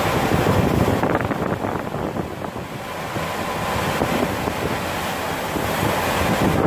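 Storm wind gusting and buffeting the microphone over rough, breaking sea around a ship's stern. The gusts ease a little about two seconds in, then build again.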